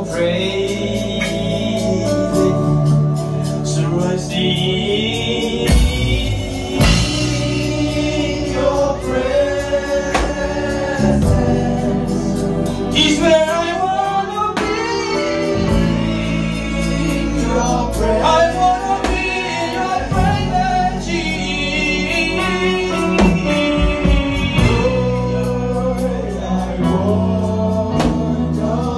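Live gospel worship song: a male lead singer with a group of backing singers, over held instrumental chords.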